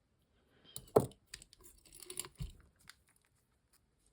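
Costume jewelry being picked through by hand: a knock about a second in, then small metal clicks, clinks and rustles that stop about three seconds in.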